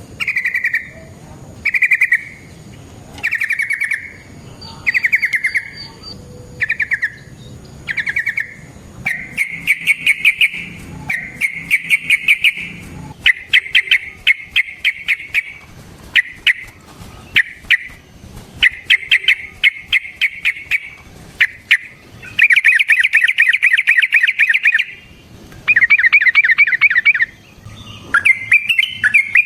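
Yellow-vented bulbul (trucukan) singing: short bubbling phrases about once a second, turning after about nine seconds into long, fast rolling trills of repeated notes. A loud, clear recording of a male in full song, as played to lure and provoke rival trucukan.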